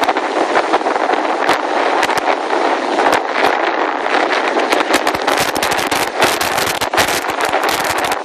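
Hurricane wind and heavy surf as a loud, steady rush, with gusts buffeting the microphone in rapid crackling hits that grow denser about halfway through.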